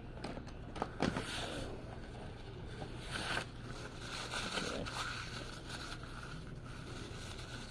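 Handling noises: a few sharp clicks in the first second, then soft rustling and scraping, with short louder rustles about one and three seconds in.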